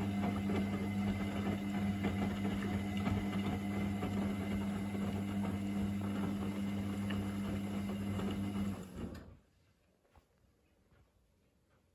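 Front-loading washing machine in the main wash of a Cotton Eco 40 cycle: the drum motor runs with a steady hum while wet, soapy laundry tumbles in the drum. The drum stops about nine seconds in and the sound falls away suddenly.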